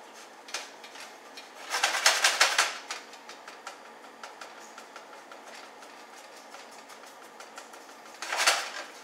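Spatula stirring and scraping egg-coated buckwheat groats around a skillet as they toast: a flurry of quick scraping strokes about two seconds in and a shorter one near the end, with faint ticks in between.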